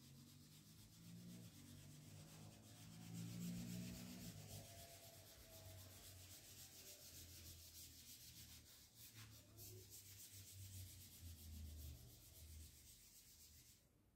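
Faint, continuous rubbing and scraping against a small blackboard, with rapid fine strokes, stopping abruptly near the end.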